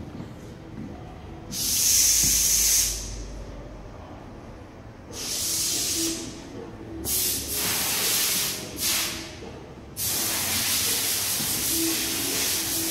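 Repeated loud bursts of hissing, each lasting about one to two seconds, then a steady hiss from about ten seconds in.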